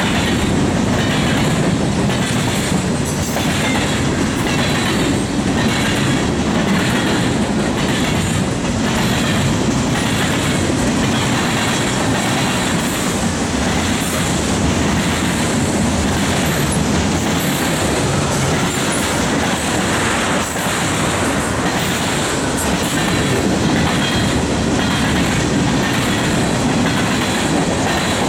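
Freight cars of a mixed freight train rolling past, their wheels clicking over rail joints in a steady clickety-clack.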